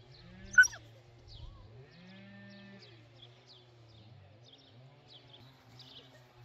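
Livestock bleating in drawn-out calls, about three of them, over faint high chirping. One short, sharp squeal about half a second in is the loudest sound.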